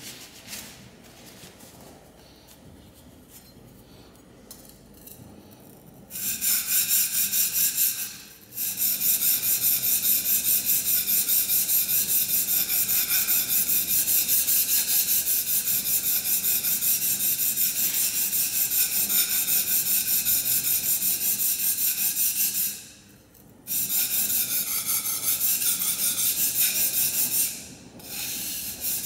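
A steel plane iron from a Record No. 4 plane is rubbed freehand in fast, even back-and-forth strokes on an oiled Norton Crystolon silicon-carbide stone, making a loud scraping. The stroking starts about six seconds in after a few quiet handling sounds. It runs in long spells, stopping briefly near the start, again about three quarters of the way through, and again near the end.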